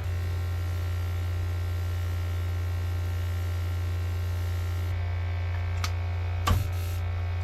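Steady low electric hum, with one short sharp knock or click about six and a half seconds in.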